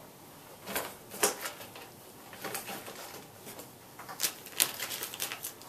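Plastic tackle packages crinkling and clicking as packs of fishing hooks and weights are handled and set down on a wooden desk: a run of short, uneven clicks and rustles, loudest about a second in and again around four seconds in.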